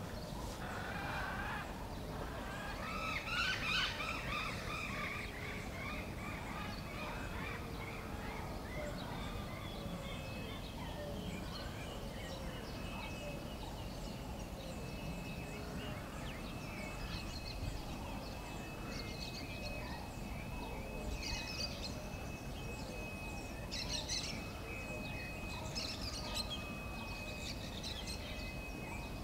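Wild birds chirping and calling in a mixed chorus, with the loudest bursts of chirps a few seconds in and again toward the end. A steady thin high tone joins about a third of the way in and holds to the end.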